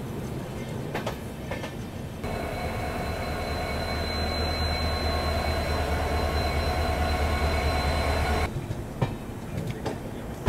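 Passenger train running on the tracks, heard from the open coach doorway. Wheels click over rail joints, with a steady rumble and a thin, steady high tone in the middle stretch. The sound changes abruptly twice, at cuts between shots.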